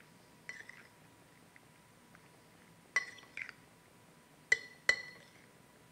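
Metal spoon clinking against a glass mixing bowl while stirring diced salsa: a soft scrape about half a second in, then a few ringing clinks, the two sharpest near the end.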